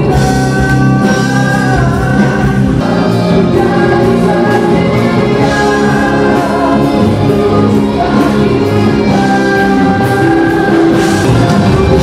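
A man singing a Malay pop song into a microphone over a full backing track.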